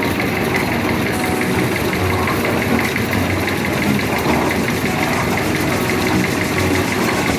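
Engine of a concrete mixer running steadily at a constant speed.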